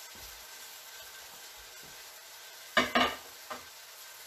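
Food sizzling faintly in a wok, broken about three seconds in by two sharp knocks of kitchenware in quick succession and a lighter one just after.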